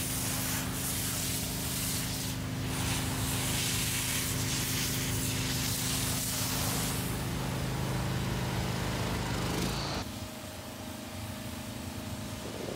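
Pressure washer spraying water hard into a steel dump truck box, a loud steady hiss over a steady engine hum. About ten seconds in, the spray drops away to a quieter hiss while an engine keeps running.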